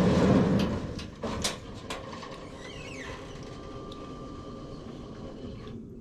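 A running engine cuts off about a second in, followed by a few sharp clicks and knocks and then a quiet background.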